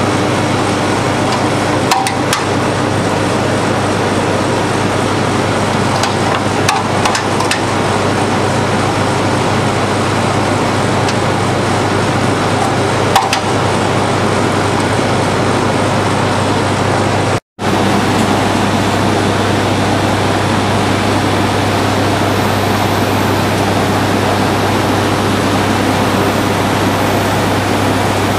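Steady, loud machinery noise of a running twin-screw extruder and pelletizer line, with a few light knocks in the first half. The sound cuts out for a moment about 17 seconds in, then resumes with a steadier low hum.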